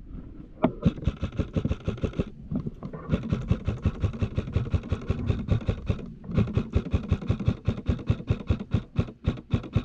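Electric airsoft carbine (the Modify Xtreme Duty AR-15) firing on full auto in three long bursts, about one and a half, three and three and a half seconds long. Each burst is a rapid, even string of gearbox clicks over a steady motor whine.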